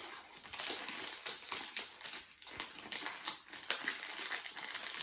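A foil blind-bag wrapper being crinkled and pulled open by hand, making a run of irregular crackles and rustles.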